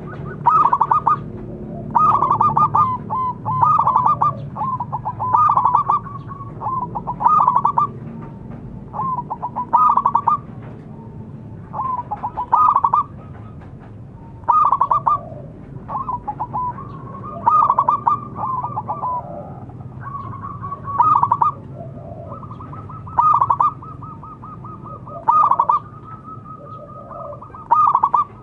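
Zebra dove cooing: a loud, clear phrase of quick stuttering coo notes, repeated about every one and a half to two seconds.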